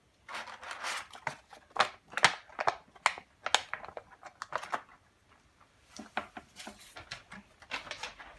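Small plastic toys and packaging being handled on a table: a quick run of clicks, taps and crinkly rustles, pausing briefly about five seconds in, then starting again.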